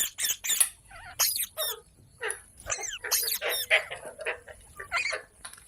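Pet Indian ringneck parrot giving a rapid run of short, shrill calls and chatter, several a second, some sliding up and down in pitch.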